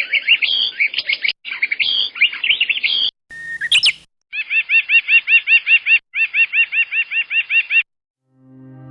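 Bird calls in several abruptly cut clips: rapid high twittering, then a chirp repeated evenly about seven times a second. Electronic music begins to swell near the end.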